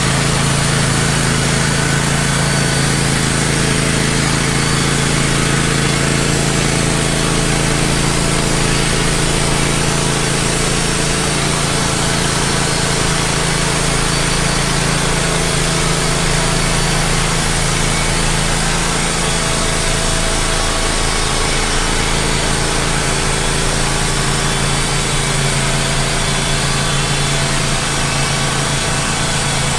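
Wood-Mizer LT15 portable band sawmill, its engine running steadily under load while the band blade cuts lengthwise through a log.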